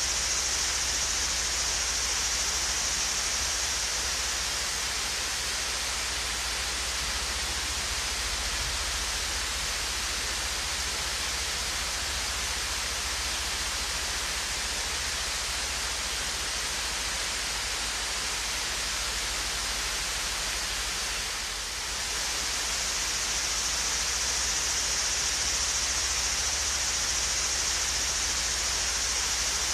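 Small waterfall, a steady rushing of falling water that sounds hissy and treble-heavy, with a brief slight dip in loudness about two-thirds of the way through.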